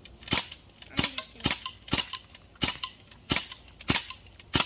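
CO2-powered BB guns firing, about eight sharp pops spaced half a second to under a second apart, each shot loud and sudden.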